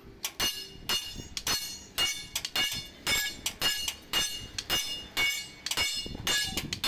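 Hammer blows striking a steel Tata truck leaf-spring leaf held across an anvil block, about two a second, each with a bright metallic ring. The leaf is being hammered to restore its arch.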